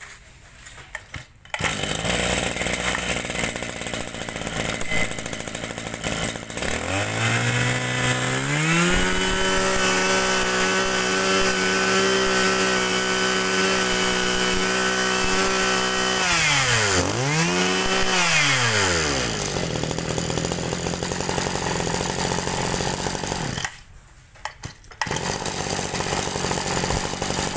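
Mitsubishi TL23 23 cc two-stroke brush-cutter engine running: it is revved up to full throttle and held there for several seconds, drops back, gives one short second rev, then settles to idle. Near the end it cuts out briefly, then runs again.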